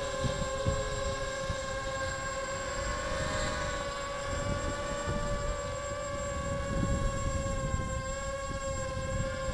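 Eachine Assassin 180 quadcopter's brushless motors and propellers whining steadily in flight, the pitch drifting slightly, over a low rumble.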